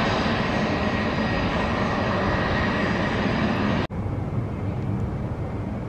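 Business-jet turbofan engines running steadily at taxi: a broad rush with a thin high whine over it. Just under four seconds in, the sound cuts out for an instant and comes back as fainter, duller jet noise without the whine.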